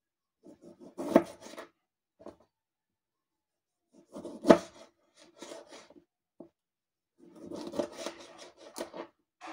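A knife sawing through a tomato against a bamboo cutting board in short bursts of rasping strokes with silent pauses between slices. A sharp knock about four and a half seconds in is the loudest sound.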